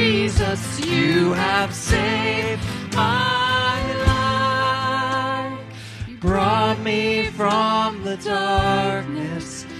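Live worship band: a man singing lead over acoustic guitar and keyboard, with a cajón keeping a steady beat. The music thins briefly a little past halfway, then picks up again.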